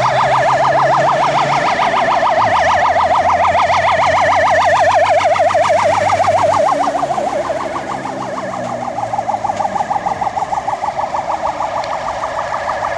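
Fire engines driving past with sirens going: a fast warbling wail, with a truck engine's low hum as one passes close. A slower-warbling siren from another vehicle takes over about seven seconds in.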